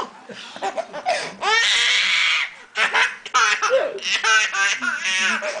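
A person laughing hard in a string of high-pitched bursts.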